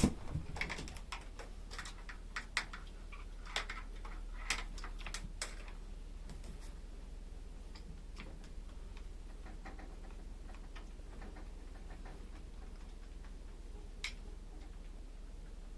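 Irregular light clicks and taps, clustered in the first six seconds, then a few scattered ones and a sharper one near the end, over a steady low hum.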